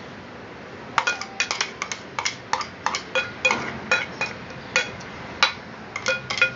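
A metal spoon clinking and knocking against a metal vessel while stirring and breaking up lumpy milk solids. The clinks come irregularly, a few a second, each with a short ring, starting about a second in.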